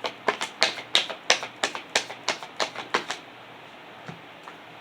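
A quick run of about fifteen sharp clicks at uneven spacing, some four or five a second, stopping a little over three seconds in.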